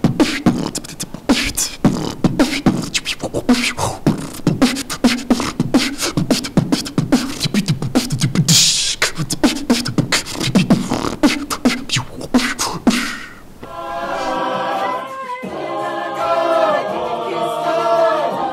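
A man beatboxing: mouth-made kick, snare and hi-hat sounds in a fast, even groove, with a longer hissing cymbal-like splash about 8 seconds in. The beatbox stops about 13 seconds in and a mixed-voice a cappella group takes over, singing in harmony.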